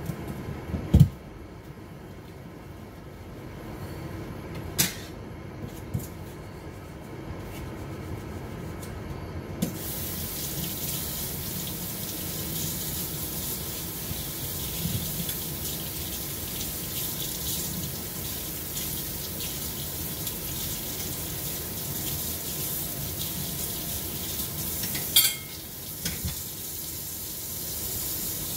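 Water running from a kitchen tap, switched on suddenly about ten seconds in and running steadily, with a brief interruption near the end. Before it come a few sharp clinks and knocks, the loudest about a second in.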